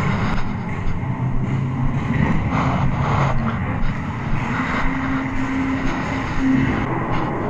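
Steady low rumble and rustle of a body-worn action camera jostled as the player runs, with a few short held low tones partway through.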